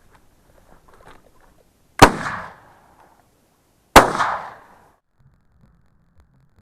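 Two shotgun shots from a Baikal MP-27 over-and-under, about two seconds apart. Each is a sharp report that rolls off over about half a second.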